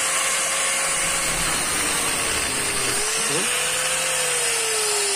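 Electric angle grinder with a thin cut-off disc running steadily and cutting through a brass rod: a continuous motor whine over a grinding hiss. The whine drops slightly in pitch near the end.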